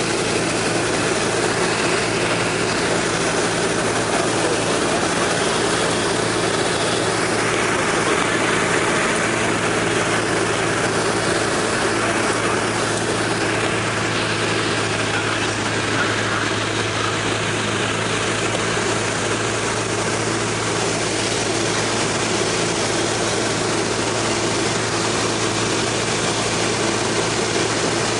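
Piper Cherokee's piston engine and propeller droning steadily, heard inside the cabin over a broad rush of air noise during the approach to landing.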